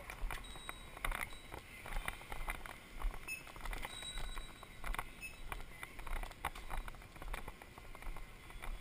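Footsteps and small handling noises of someone walking through a shop: irregular light clicks, taps and scuffs.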